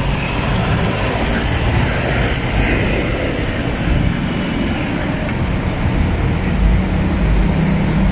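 Street traffic noise: engines of passing cars and motorcycles running steadily, with gusts of wind buffeting the microphone.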